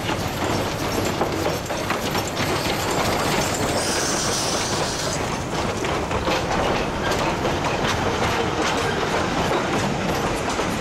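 C2 narrow-gauge steam locomotive pulling slowly past at close range with its passenger coaches, steam hissing, then the coaches' wheels clicking over the rail joints as they roll by. A brief high hiss sounds about four seconds in.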